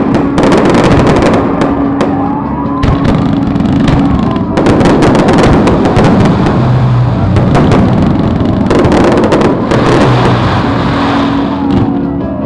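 Fireworks display at its height: many shells bursting in quick succession, the bangs and crackling running together into a continuous loud barrage.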